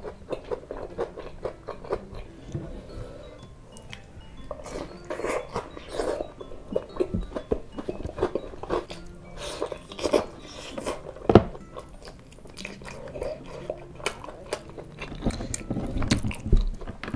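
Close-miked biting and chewing of battered fried tempeh (tempe mendoan), many short mouth clicks with scattered crunches. There is a single sharp knock about eleven seconds in.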